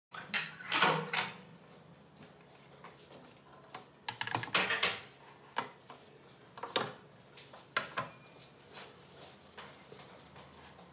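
Irregular knocks and clatter of an electric clothes iron being handled and moved about on a plastic tray, loudest about a second in and again around four to five seconds in.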